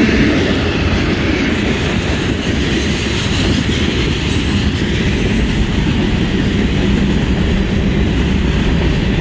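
Long freight train's cars rolling steadily past close by: the continuous noise of steel wheels on the rails, heavy at the low end.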